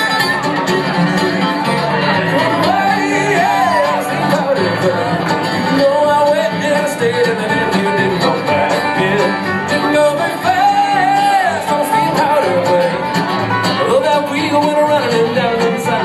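Live bluegrass string band playing: acoustic guitar, fiddle and upright bass, with a voice singing a melody over them.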